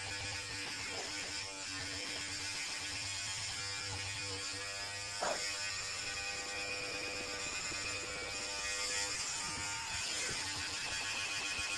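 Cordless electric hair clippers buzzing steadily as they trim a dog's fur, under background guitar music. A short, louder sound stands out about five seconds in.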